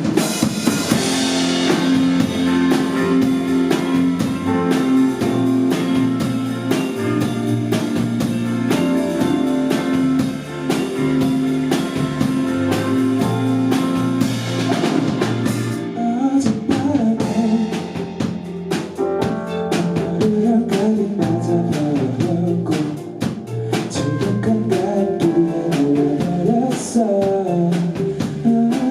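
Band music with drum kit and guitar. Sustained chords run for about the first fifteen seconds, then a moving melody line comes in over the drums.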